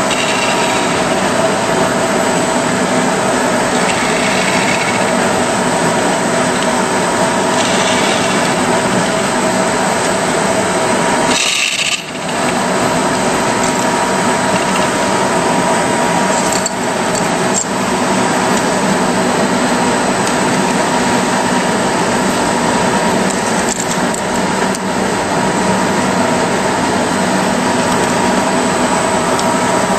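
Vertical double disc grinder running, its diamond-impregnated abrasive wheels grinding yttrium ceramic discs fed on a rotary carrier. It makes a loud, steady grinding hiss over a steady hum, with a brief break about twelve seconds in.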